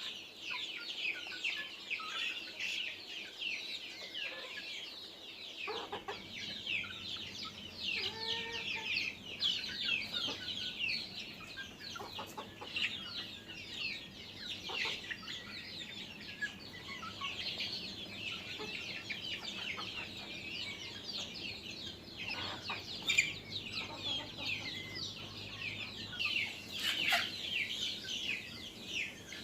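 A flock of deshi (native) chickens calling together: a constant chorus of high-pitched peeping, with a few lower clucks mixed in.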